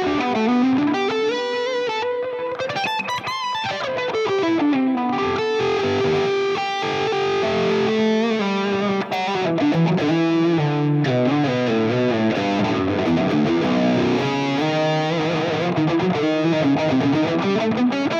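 Ibanez electric guitar played solo as free, exploratory noodling rather than a set riff: melodic runs with notes sliding up and down in pitch several times.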